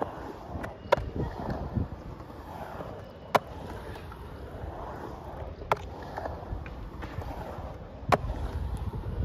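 Skateboard wheels rolling across a wet concrete bowl, a steady rumble that swells and fades as the board carves up and down the walls. Sharp clacks cut through it every two to three seconds.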